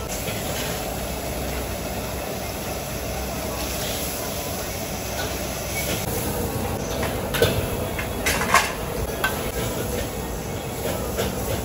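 Street-food kitchen noise: a steady rushing roar, with several sharp metal clanks of utensils on pans a little past the middle, the loudest about eight and a half seconds in.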